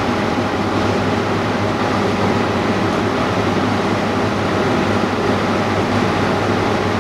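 Steady machine noise, a constant low hum under an even rushing sound, as from running equipment such as a pump or fan.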